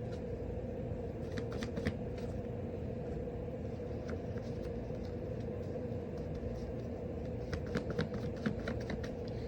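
Cards being handled and shuffled: faint light clicks and flicks in two short runs, about one and a half seconds in and again near the end, over a steady low hum in the room.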